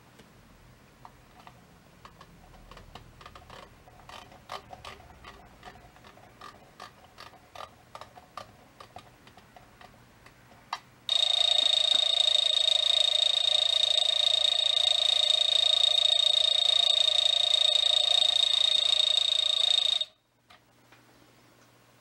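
Small, irregular clicks as the knobs on the back of a wooden Totoro alarm clock are turned. About eleven seconds in, the alarm goes off: the small ball striker beats the acorn-shaped wooden bell on top in a loud, steady ring that cuts off suddenly about nine seconds later.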